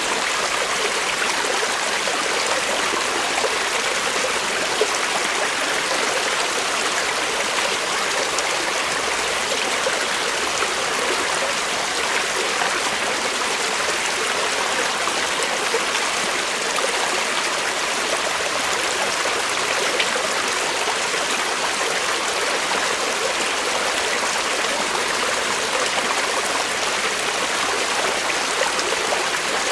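Creek water flowing steadily over rocks, a continuous even rushing with small trickling splashes.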